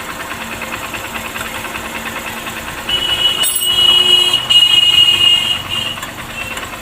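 Honda Shine's 125 cc single-cylinder engine idling with a fast, even 'khat-khat' rattle from the timing chain. The mechanic blames the rattle on a chain tensioner that isn't working, even though the timing chain is new. About three seconds in, a loud high steady whine joins for about three seconds and then fades.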